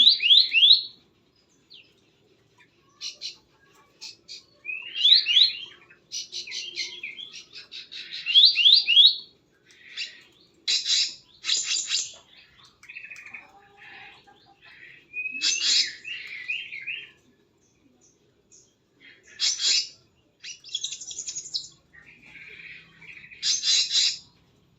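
Small birds chirping: clusters of quick, high sweeping notes a second or so long, repeated with short gaps.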